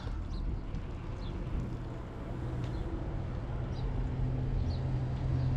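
Steady low rumble of wind and rolling noise while riding a bicycle, getting a little louder about halfway through, with a few faint high chirps.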